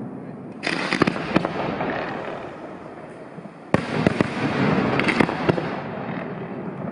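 Aerial firework shells bursting overhead: two sudden bangs about three seconds apart, each followed by a spray of sharp crackles, with a rumble of further bursts between them.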